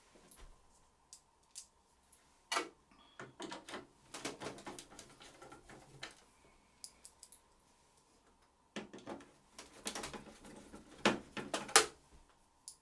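Hand screwdriver driving screws back into a printer's frame: bursts of clicking and scraping as the screws are turned, with sharp taps from the tool and screws near the end.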